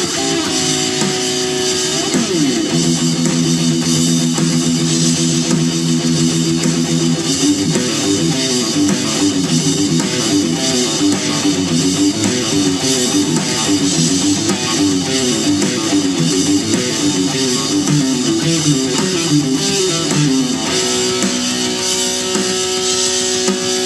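Electric guitar playing a hard-rock instrumental over drums and bass. It opens on held notes, runs fast repeating up-and-down patterns for most of the stretch, and settles on a held chord near the end.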